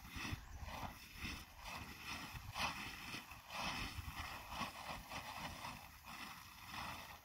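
A plastic tarp rustling and crinkling in irregular swishes as it is rubbed and waved against a saddled horse.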